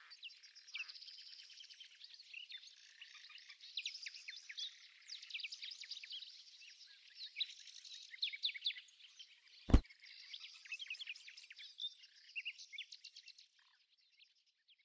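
Small birds chirping in quick, high calls, with one sharp click about two-thirds of the way through. The birdsong fades out shortly before the end.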